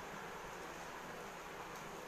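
Steady low hiss of background noise, with a faint tick near the end as fingers mix rice on a plate.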